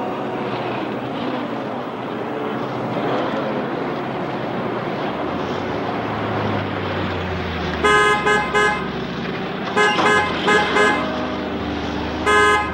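Steady road traffic, then car horns honking in groups of short blasts: one group about eight seconds in, another about two seconds later, and a longer blast near the end.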